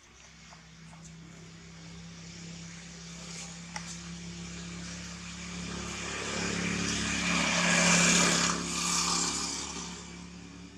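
A motor vehicle passing by: a steady engine hum that grows louder for about eight seconds, peaks, then fades away.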